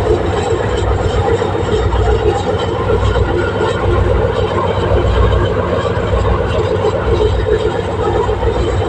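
Train in motion: a steady, loud running noise, heaviest in the low end, with no separate knocks or changes.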